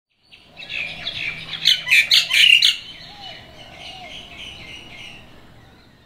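Birds chirping and chattering, with a quick run of loud, sharp calls about two seconds in, then softer chatter that fades away.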